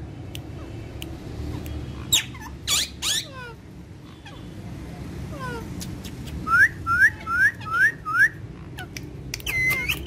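Alexandrine parakeets calling: two loud harsh screeches about two and three seconds in, then a quick run of five rising whistled chirps, and a short held whistle near the end.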